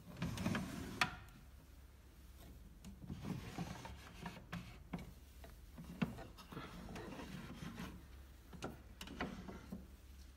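Wooden fittings of an antique Biedermeier secretary's interior being handled: a black turned column pulled from its place and small hidden drawers slid out, wood rubbing and scraping on wood with a few sharp knocks, the loudest about a second in and about six seconds in.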